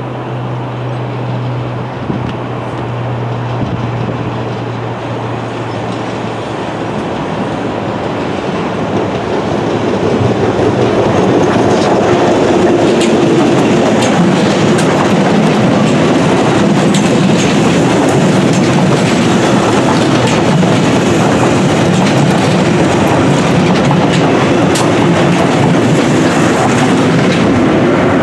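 London Underground 1962 Stock rail adhesion train approaching and passing, growing louder from about ten seconds in, its wheels clicking over the rail joints as the cars go by.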